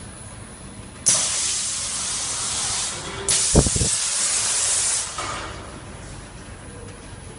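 Pneumatic cylinders of a Parmigiano Reggiano wheel-positioning machine venting compressed air: two loud hisses of about two seconds each, one right after the other, with a low thud just after the second begins.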